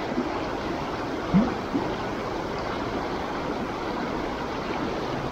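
River water of the Tone River's main stem rushing steadily, with a brief short sound about a second and a half in.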